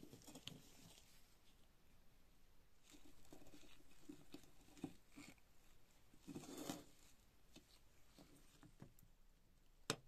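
Faint handling sounds of rusty steel knife parts being moved on a wooden board by gloved hands: light scrapes and small taps, with a short scrape about two thirds through and one sharp click just before the end.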